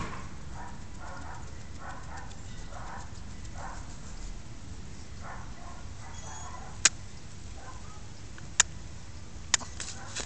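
Miniature pinscher nibbling and licking at its paw, a run of short, irregular soft sounds. In the second half come three sharp clicks, the loudest sounds, about a second or two apart.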